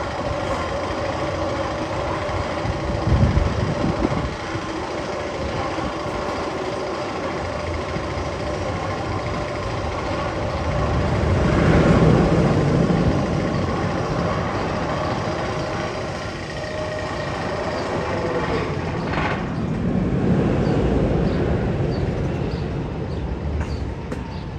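Roller coaster noise: a steady mechanical rumble and hum of the ride, swelling louder three times.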